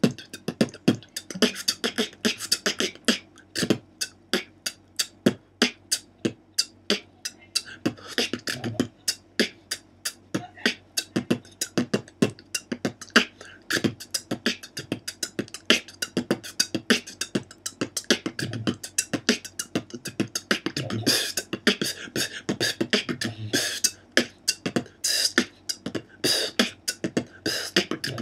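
Beatboxer freestyling with only the three basic sounds: bass kick, hi-hat and rim shot, in a steady groove. There are no vocal bass lines or special effects, just fast, tight percussive strokes.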